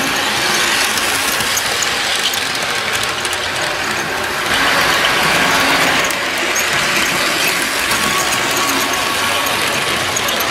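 Bachmann HO scale model train running on its sectional track: a steady whir of the locomotive's small motor and gears, with fine ticking and rattling from the wheels on the rails.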